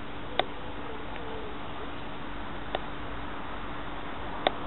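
Railway station ambience: a steady hiss with a faint steady hum underneath, broken by three sharp clicks, the first about half a second in, one near the middle and one near the end.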